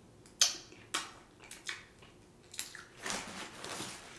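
Close-miked wet mouth smacks as a man eats and licks food off his fingers: about five short, sharp smacks, then a softer, longer noise near the end.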